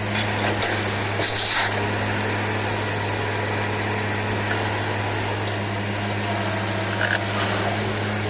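Borewell drilling rig running steadily, with a constant low hum and a short hiss about a second and a half in.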